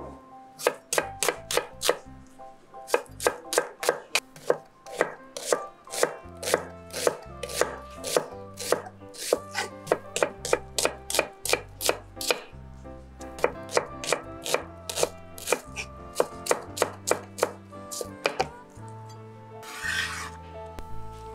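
Chef's knife chopping an onion on a wooden end-grain cutting board: quick, regular knocks of the blade on the board, about three a second, with two short pauses. Near the end, a brief scrape as the blade slides under the chopped onion.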